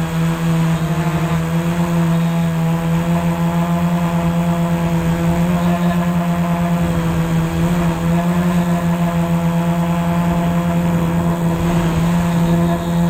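Electric motors and propellers of a hovering camera drone, a loud steady buzzing hum heard from the camera mounted on the aircraft, its pitch wavering only slightly.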